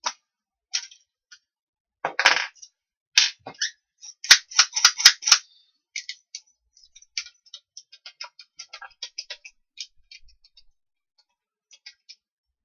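Small metal parts and tools handled on a wooden workbench: irregular metallic clicks and clinks, with a few louder clattering bursts in the first half and a run of lighter ticks after.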